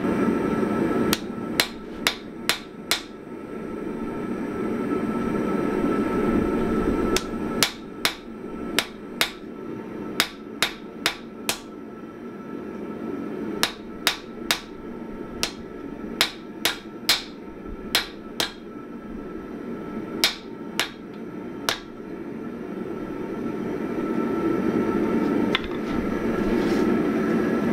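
Hand hammer striking a hot Damascus steel billet on an anvil as it is drawn out, in several runs of quick, ringing blows with pauses between them. Underneath runs a steady rushing noise that swells between the runs and is loudest near the end.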